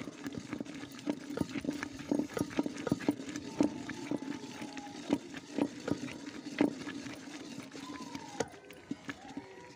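Wooden stick stirring rice flour into thick jaggery syrup in a metal pot, knocking irregularly against the pot's sides and bottom, over a steady low hum.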